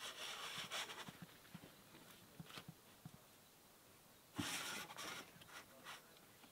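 Heavy canvas of a swag being handled and pulled over its frame: two bursts of rustling cloth, each about a second long, near the start and about four and a half seconds in, with light knocks and clicks between.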